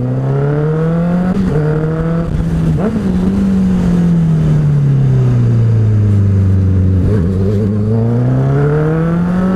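Loud motorcycle engine pulling under acceleration, its pitch rising, then dropping at a gear change about a second and a half in. It then winds down as the bike slows, runs low and steady for a moment, and climbs again near the end.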